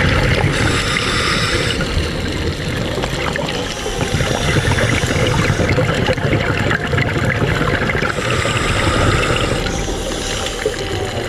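Underwater sound from a scuba dive: a steady rush of water noise, broken twice by a hissing burst about a second and a half long, typical of a diver's regulator breathing, once just after the start and again about eight seconds in.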